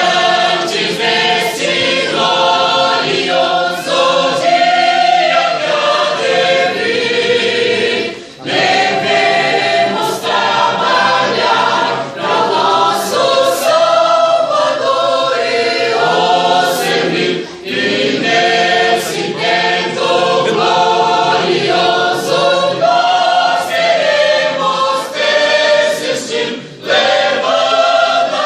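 Church choir singing a hymn, with short breaks between phrases about every nine seconds.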